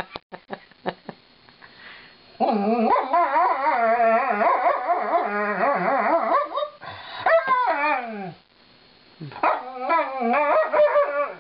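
Alaskan malamute howling in long, wavering 'woo-woo' phrases, her annoyed protest at being brushed. After a few short clicks in the first two seconds come three stretches of howling, the first about four seconds long, the last two with sliding pitch.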